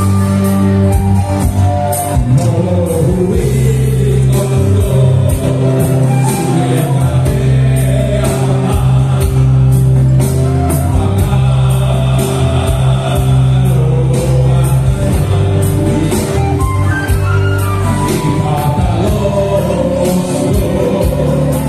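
A group of men singing together into microphones, backed by a band with acoustic guitar, over a steady beat.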